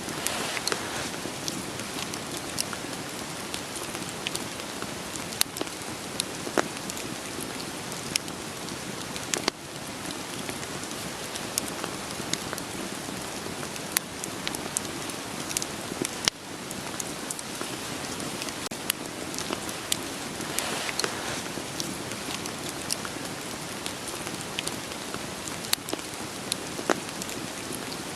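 Steady rain hiss with irregular sharp crackles and pops of burning firewood in a campfire.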